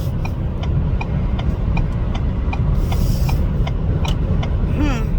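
Car cabin noise while driving: a steady low rumble of engine and road, with a light, regular ticking about three to four times a second.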